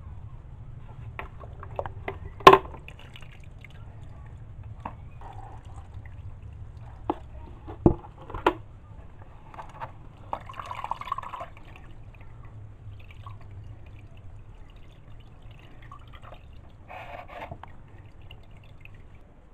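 Water dripping and splashing as soaked shredded cassava (abacha) is sieved and rinsed to wash the starch away, with a few sharp knocks of the sieve and bowl in between.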